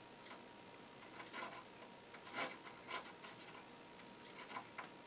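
Micro carbide drill bit twisted by hand in a finger pin vise, scraping through a circuit board's through-hole: a few faint, irregular scratchy rasps, the loudest about two and a half seconds in. The bit is grinding out hard corrosion left by battery leakage, crud that won't melt like solder.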